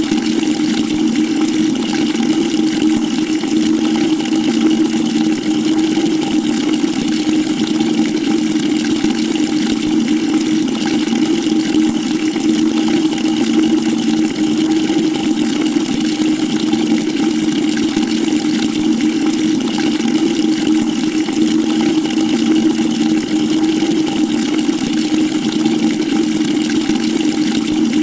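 Water running into a bucket: a steady rushing splash with a low, even hum.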